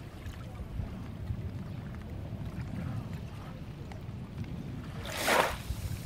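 Gentle waves lapping at a shallow sandy shore over a steady low rumble. About five seconds in, one brief, louder wash of water comes in.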